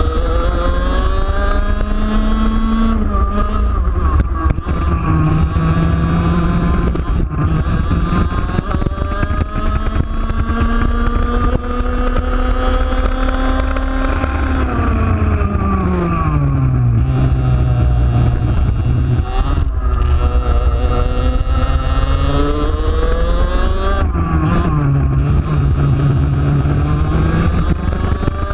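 A TaG Senior kart's 125cc two-stroke engine running at race pace, close on the onboard camera: its pitch climbs steadily on the straights and drops sharply as the kart slows, with a long climb through the middle, a big fall about 15 seconds in, then climbs again with another drop around 24 seconds in. Steady wind rumble on the microphone underneath.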